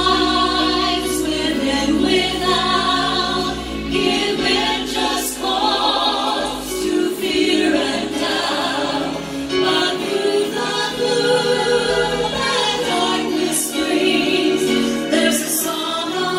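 Church choir singing a gospel song behind lead vocalists on microphones, over instrumental accompaniment with sustained low bass notes; the words sung are "troubled times within without, give men just cause to fear and doubt," going into "but through the gloom that darkness brings."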